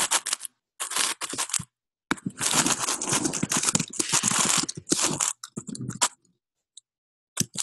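Computer keyboard being typed on: quick runs of keystrokes with short pauses, and a quiet stretch of about a second near the end.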